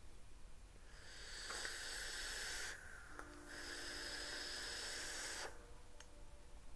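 Hissing draw on a box-mod e-cigarette with a rebuildable, cotton-wicked atomizer: air and vapour pulled through the firing coil in two pulls of about two seconds each, with a short break between.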